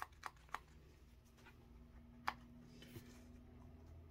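Faint, sharp clicks from a squeeze bottle of glue being pressed as it runs nearly empty: three quick ones at the start, then single clicks about two and three seconds in, over a faint low hum.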